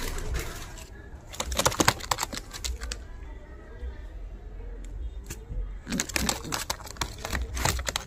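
Domestic pigeons cooing in low, repeated rising-and-falling calls. There are two bursts of rapid clicks and rustles, one about a second and a half in and another about six seconds in.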